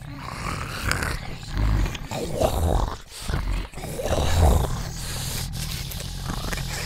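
Monster creature vocal sound effect: deep guttural groans and grunts in several loud swells, the loudest about four and a half seconds in, with a low rumble beneath.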